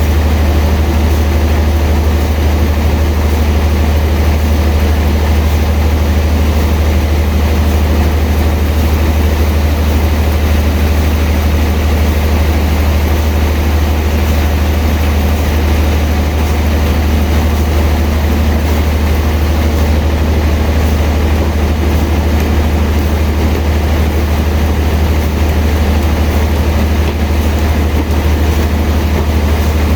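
Sawmill machinery running steadily, a heavy engine-like hum with a strong low drone that does not change.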